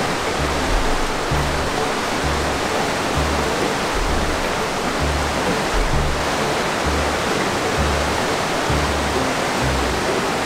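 Steady rushing of a waterfall, under background music with a regular bass beat.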